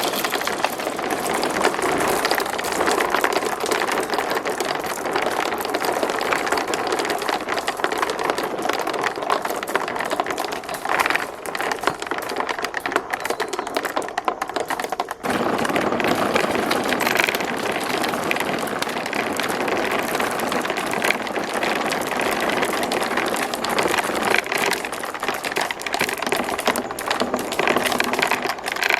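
Many marbles rolling and clattering down marble-run tracks: a dense, continuous rattle of small clicks and knocks, with a brief break about halfway through.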